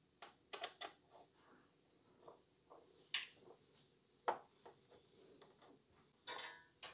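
Faint scattered clicks and ticks of a screwdriver tightening a CPU cooler's spring-loaded mounting screw into its bracket. Two clicks a little over a second apart stand out in the middle, and a brief scrape comes near the end.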